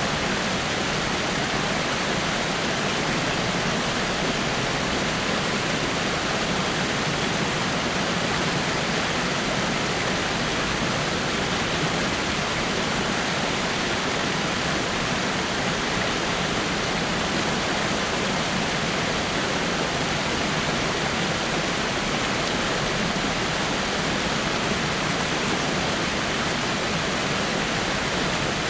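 Small waterfall splashing over rocks: a steady, even rush of falling water.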